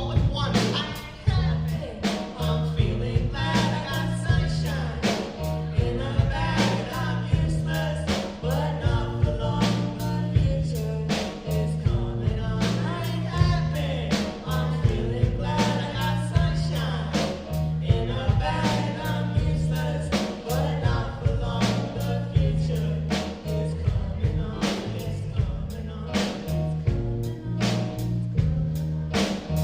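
A live rock band playing with drums, bass and guitar over a steady, driving beat.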